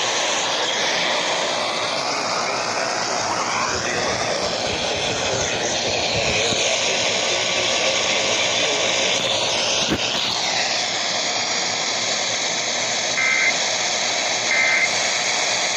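Heavy hiss and static from a broadcast radio receiving the Emergency Alert System monthly test, with faint whistling interference sliding in pitch through the first part and a click about ten seconds in. Near the end come two short warbling EAS end-of-message data bursts, a little over a second apart, that mark the close of the alert.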